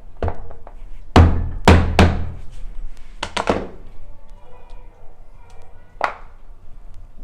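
Dried anishi cakes being beaten: a run of irregular heavy thuds, the loudest about one to two seconds in, then a pause and one more thud near six seconds.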